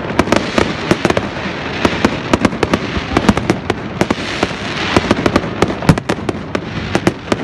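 Fireworks and firecrackers going off: dozens of sharp cracks and bangs in quick, irregular succession over a continuous noisy background.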